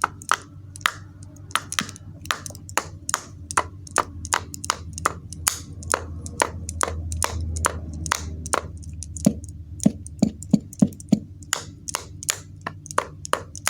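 A long run of sharp taps or clicks, irregular at about two to three a second, a few with a short low ring. This is a small hard device being clicked or tapped over and over as someone tries, without success, to get it working.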